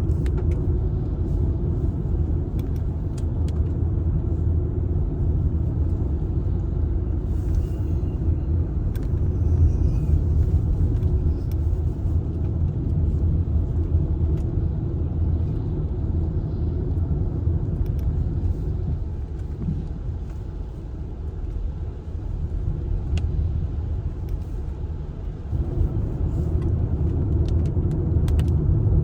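Steady low rumble of a car driving on the road, heard from inside the cabin. It eases off for a few seconds about two-thirds of the way through, then returns.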